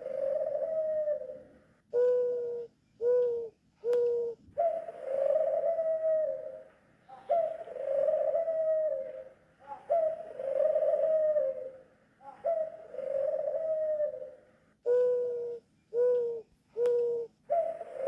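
A dove cooing over and over. Runs of three or four short coos come near the start and again about three-quarters of the way through, and between them are long drawn-out coos of about two seconds each that drop in pitch at the end.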